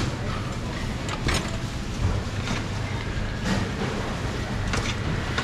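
A blade paring the rind off a melon in a few short, sharp scraping strokes, over a steady low rumble.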